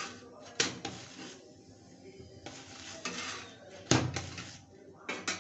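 Steel spatula clinking and scraping on an iron tawa as a paratha is turned and pressed down. There are several sharp clanks, the loudest about four seconds in, with a rasping scrape in between.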